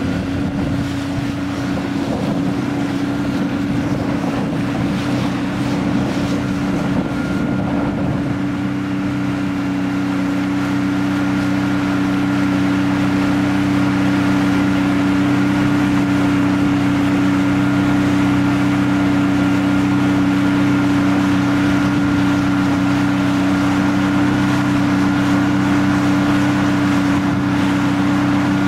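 A fishing boat's outboard motor running steadily under way, with wind buffeting the microphone and water rushing past the hull. The motor gets a little louder over the first ten seconds or so, then holds an even note.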